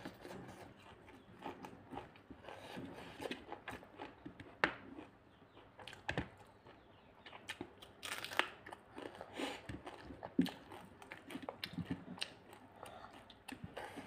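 Close-up eating sounds: chewing, lip smacks and small crunches, irregular and unhurried, as people eat rice and boiled leafy greens by hand.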